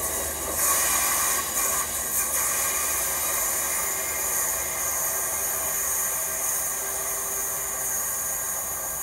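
Class 150 Sprinter diesel multiple unit pulling away and receding around a curve, its engine and wheel noise slowly fading, with a steady high-pitched hiss over it.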